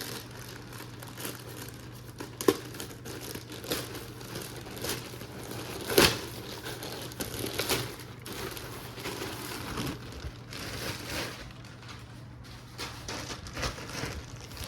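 Plastic packaging crinkling and rustling irregularly as a package is opened by hand, with two sharp cracks, about two and a half and six seconds in.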